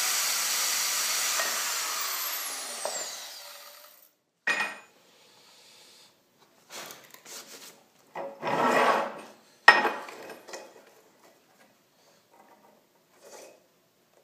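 A power tool running for about two seconds, then winding down with a falling whine. It is followed by intermittent scraping and rubbing of tool work, a louder rasp, and one sharp knock near the middle.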